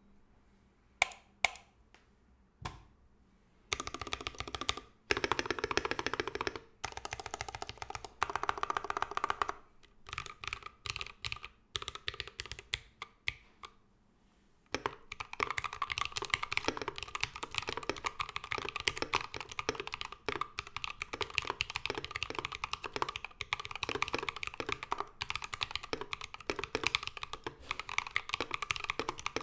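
Mechanical keyboard with Tecsee Ice Grape linear switches (UHMWPE stems) on a brass plate with no plate foam, under cherry-profile keycaps, being typed on. A few single keystrokes come in the first three seconds, then short bursts of typing, then steady fast typing from about fifteen seconds in.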